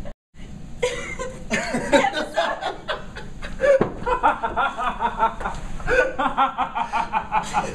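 People laughing hard, breaking into quick, repeated bursts of laughter over the second half.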